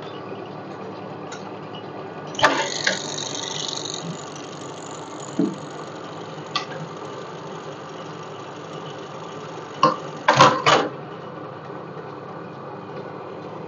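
Industrial buttonhole sewing machine running and stitching a buttonhole, a steady mechanical hum. A burst of clattering comes about two and a half seconds in, and a few sharp clacks come near ten seconds in.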